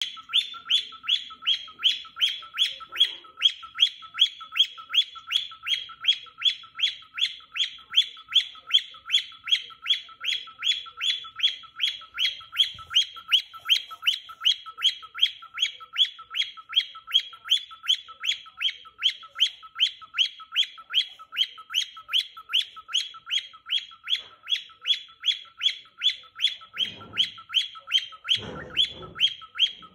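Pet cockatiel singing a long, unbroken run of short high chirps in an even rhythm, about two or three a second.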